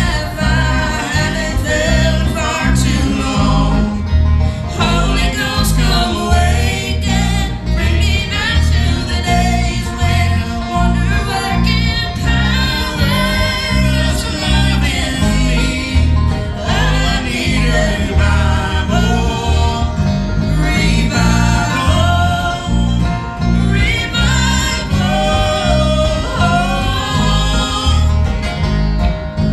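Live bluegrass-style gospel music: voices singing over strummed acoustic guitar and banjo, with a bass line stepping under it.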